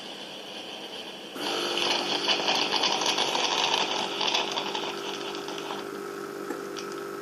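Closer to Nature Perfect Prep formula machine starting its cycle about a second and a half in: a steady pump hum with a loud hissing rush as it puts out the first lot of water into the bottle. The hiss dies away near the end while the hum carries on.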